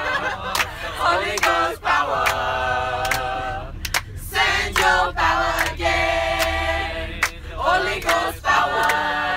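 Voices singing together in long, wordless held notes, each lasting a second or two, with short breaks between phrases.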